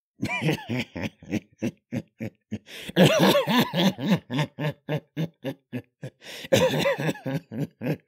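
A man laughing in a long run of quick short bursts, about four a second, growing louder about three seconds in and again near the end. This is a performed, mocking character laugh.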